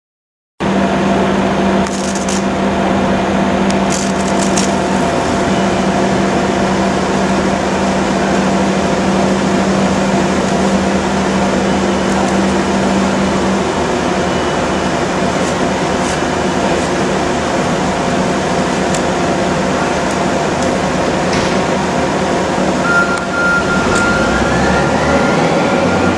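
Loud, steady machinery noise with a low hum that stops about halfway through and a rising whine near the end.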